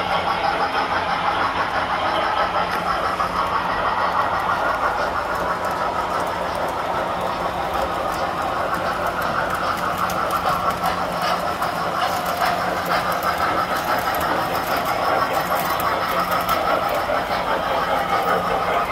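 Tinplate toy electric trains running on metal track: a steady metallic rolling rumble and motor whir, with a low hum underneath and scattered clicking over the wheels in the second half.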